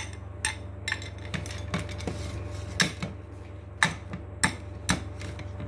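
Alexandrine parakeet knocking a small plastic chain toy held in its beak against a hand mirror and the tabletop: a dozen or so sharp, irregular clicks and clinks.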